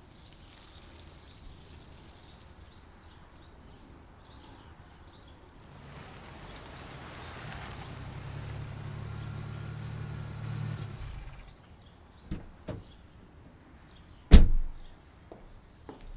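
Faint high chirping, then a car pulls up, idles for a few seconds and its engine is switched off. Two clicks follow, then a car door slams shut, the loudest sound, with a few light ticks after it.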